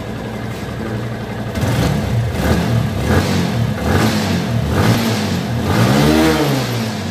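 TVS motorcycle's single-cylinder engine idling at about 1,400 rpm, then revved several times with the throttle. Its pitch rises and falls with each blip, reaching over 5,000 rpm in the biggest one near the end before it drops back toward idle.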